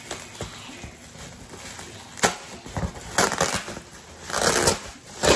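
Foil-lined insulated grocery bag crinkling and rustling as it is pulled open and handled, in several loud crackly bursts from about two seconds in.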